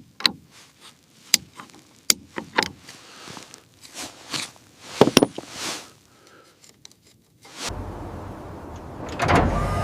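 A string of sharp knocks and clatters, like hardware being handled and latched, followed about three-quarters of the way through by an engine starting to run with a steady low hum that grows louder near the end.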